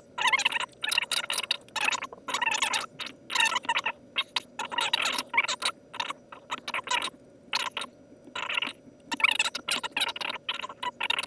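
Felt-tip marker scribbling on paper: quick runs of short, scratchy strokes with brief pauses between them, as the marker shades in areas of a drawing.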